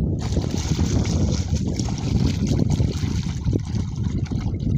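Shallow muddy water sloshing and splashing around a wading person's hands and legs, under a steady low rumble of wind on the microphone.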